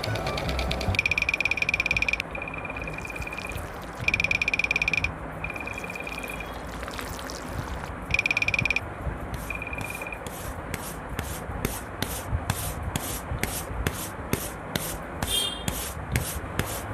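Rubbing and scraping strokes on wet cement, coming regularly about twice a second in the second half. Several high, steady buzzing passages break in during the first half, the longest lasting about a second.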